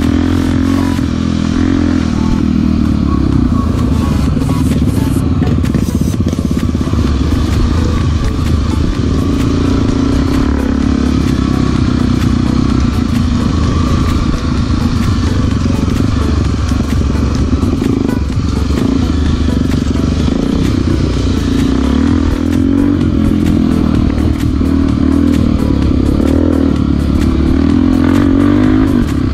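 Single-cylinder four-stroke Honda trail motorcycle engine running under way on a dirt trail, its pitch holding fairly steady with small rises and falls, with clatter and rattling from riding over rough ground.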